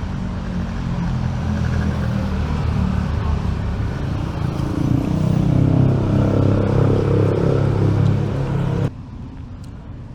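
A motor vehicle's engine running close by, a low steady drone that grows louder and rises slightly in pitch partway through, then cuts off suddenly near the end, leaving quieter street traffic noise.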